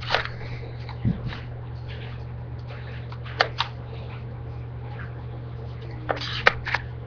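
A steady low hum with scattered sharp clicks and taps: one near the start, a dull thump about a second in, a quick pair midway, and a cluster of three near the end.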